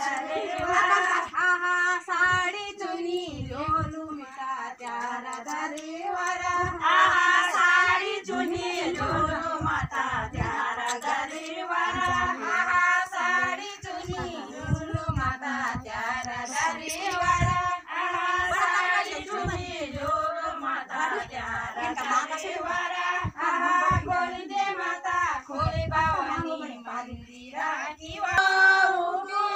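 Women's voices singing a Garhwali Holi folk song together, with irregular low thumps underneath.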